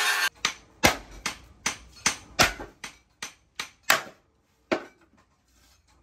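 Hammer blows on a steel tractor plough disc, about eleven sharp metallic strikes at roughly two to three a second, stopping a little before the end. The blows are knocking off the section cut out with the angle grinder.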